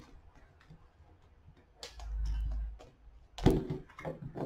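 A deck of tarot cards being shuffled by hand: soft, scattered clicks of cards at first, then a cluster of louder, sharper card snaps near the end. A brief low rumble comes in the middle.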